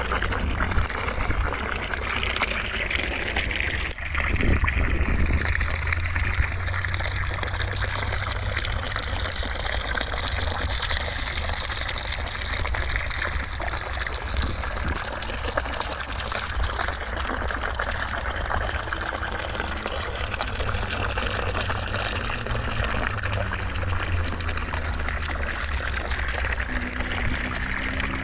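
Steady white noise, a rushing hiss like gushing water, with slowly shifting tone and a brief dip about four seconds in.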